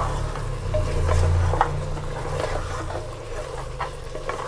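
Wooden spatula stirring and scraping a thick mutton spice masala around a steel pot, with irregular scrapes and knocks over the sizzle of the masala frying in oil. A low hum sits underneath and fades about three seconds in.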